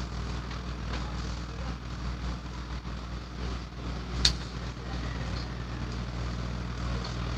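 Steady low mechanical hum, with one sharp metallic click about four seconds in as long-nose pliers work the wire terminal off a carbon brush in a rotary hammer's brush holder.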